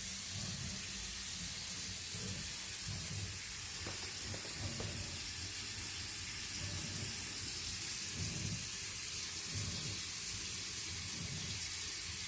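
Bathroom faucet running, water streaming steadily into the sink as a constant hiss.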